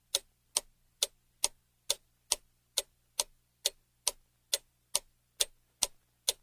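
Clock-ticking sound effect: a steady, evenly spaced tick a little over twice a second, serving as the guessing countdown in a quiz.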